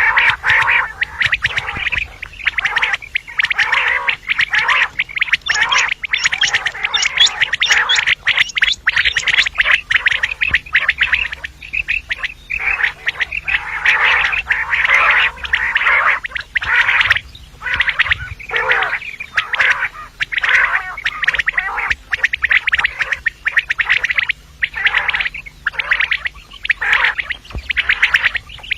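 Female common quail calls, short harsh notes repeated rapidly and overlapping with only brief gaps. This is the female call played as a lure in quail hunting.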